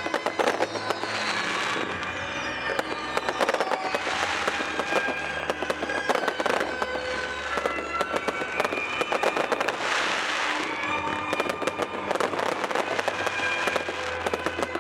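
Aerial fireworks going off in rapid succession: a dense run of bangs and crackling, with surges of crackle about a second in, around four seconds and around ten seconds. Music plays underneath.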